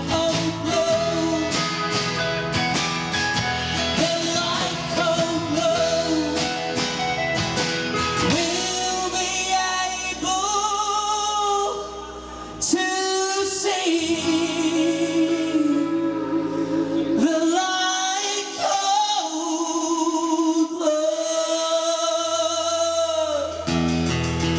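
A band plays a song: a singer holds wavering sung notes over drums, guitar and bass. The music thins out briefly about halfway through, then comes back in full.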